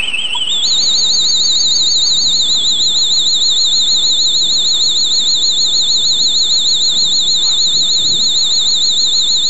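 Electronic warbling alarm tone from a two-555-timer sound-effect circuit. The pitch climbs steeply in the first second, then holds high with a fast trill of roughly ten wobbles a second.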